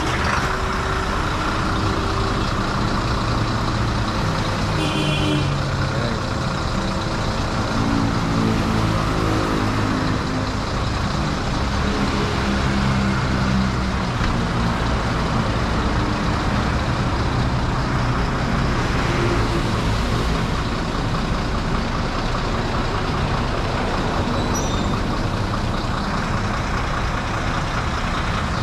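Large diesel truck engine running steadily, a low even rumble with no revving.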